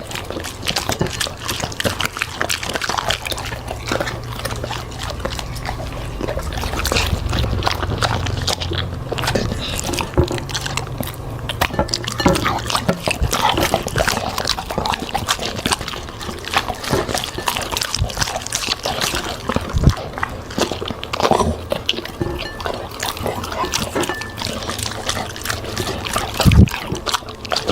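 Dog eating fruit and vegetables: wet chewing and slurping with many quick crunching clicks.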